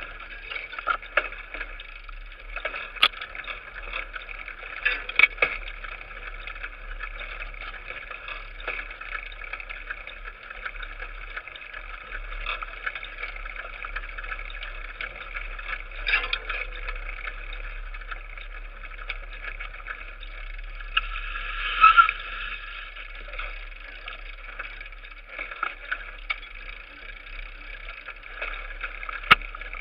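Mountain bike riding along a bumpy dirt forest trail: a steady rolling noise with frequent sharp knocks and rattles from the bike and camera mount jolting over bumps, with a louder cluster of knocks about three quarters of the way through.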